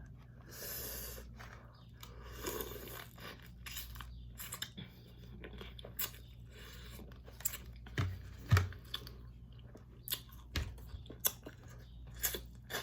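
Close-miked mukbang eating of a seafood boil: chewing and crunching, with many sharp cracks and clicks, the loudest pair about eight seconds in.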